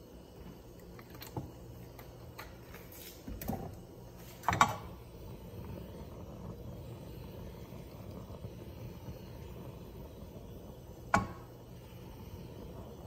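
Lit gas stove burner giving a low, steady hiss, with a few knocks of a frying pan against the cast-iron grate as it is moved. The loudest knock comes about four and a half seconds in, and another sharp one about eleven seconds in.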